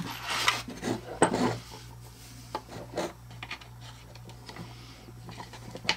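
Small hardware being handled: a 6-32 machine screw picked out and fitted to a wooden board, giving scattered light clicks and rubbing. The clicks are most frequent in the first second or so, with a few single ones later.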